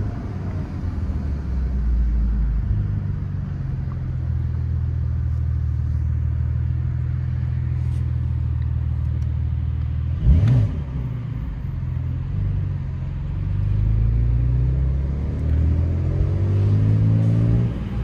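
Porsche 911 flat-six engine heard from inside the cabin, running at low revs while the car moves slowly. There is a short loud burst about ten seconds in, and near the end the revs climb as the car accelerates.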